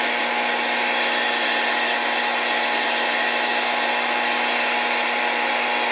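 Steady FM static hiss from a 1962 Zenith H723W table radio's speaker, tuned between stations, with a few faint steady tones in it.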